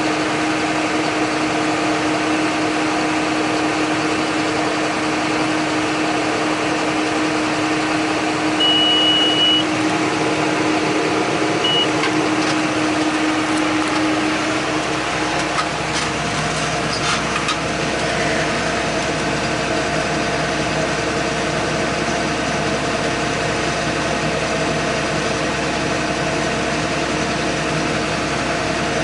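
John Deere 8100 tractor's six-cylinder diesel running steadily under load while pulling a John Deere 466 square baler, its note changing about halfway through. A short high beep sounds about nine seconds in, and a brief second one a few seconds later.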